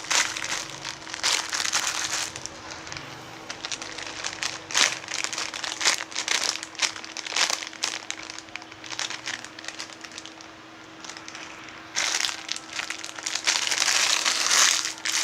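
Plastic crinkling and rustling as it is handled, in irregular bursts, loudest near the start and again from about three-quarters of the way in.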